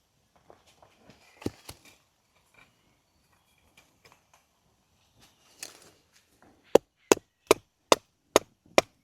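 Wood being chopped. A few faint knocks and a short rustle come first, then near the end a quick, even run of sharp chopping strikes, about two and a half a second.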